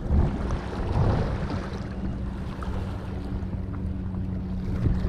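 Wind buffeting the microphone at the water's edge, gusting up and down, with a steady low hum underneath and light water noise.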